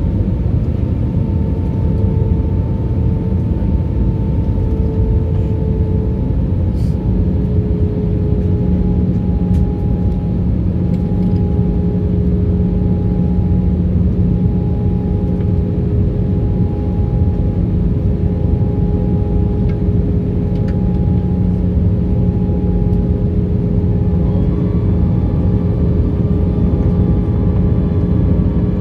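Steady cabin noise of an Airbus A320-family jet in descent: a low rumble of engines and airflow with a steady engine hum. The hum drops slightly in pitch about seven seconds in, and a few higher tones join near the end.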